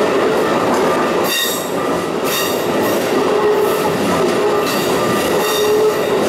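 Keikyu electric train rolling slowly through a sharp curve, a steady rail rumble with its wheels squealing in high-pitched spells, about a second in, at two seconds, and again near the end.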